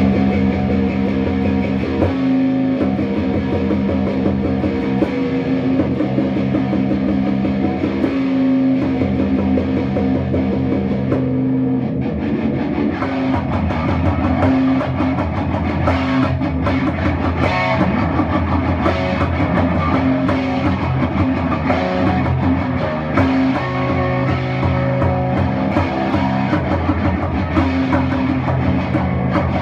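Instrumental rock music led by guitar, with held low notes that turn busier with drum hits about twelve seconds in.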